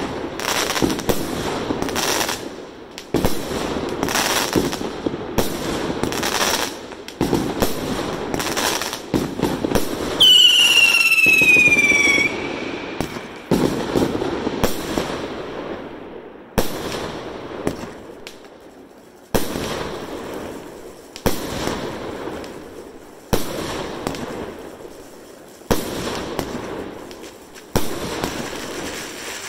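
Aerial fireworks going off: first a quick run of bangs and crackles, then a whistle that falls in pitch for about two seconds. After that come single loud shell bursts about every two seconds, each fading away over a second or two.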